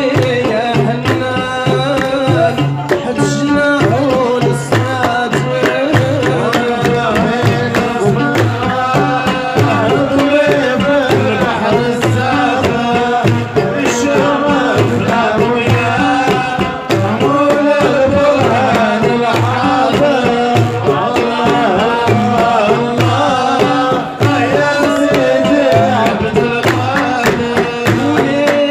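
Shellali folk music from Adrar, Algeria: men singing to a plucked long-necked lute, with a steady beat on tbel hand drums and hand-clapping.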